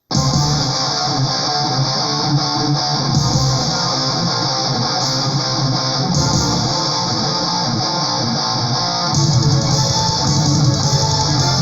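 Neoclassical melodic metal recording: a track starts abruptly with electric guitars and bass playing, without vocals.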